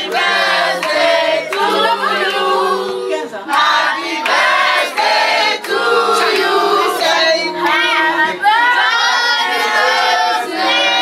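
A group of voices, children's and women's, singing together, with hand clapping.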